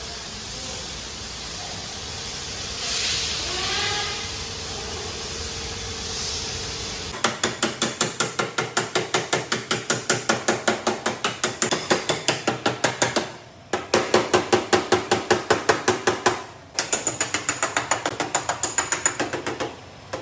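Hammer beating out car body sheet metal in fast, even taps, about five blows a second, in runs broken by two short pauses. Before the hammering starts there are about seven seconds of steady hiss-like noise.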